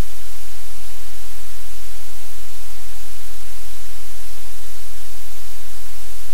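Loud, steady hiss of static-like noise that does not change.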